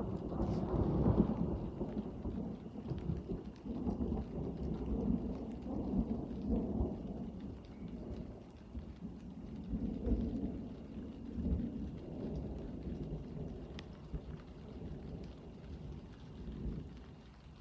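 Rolling thunder: a long, low rumble that starts suddenly, swells and ebbs in several waves, and dies away near the end.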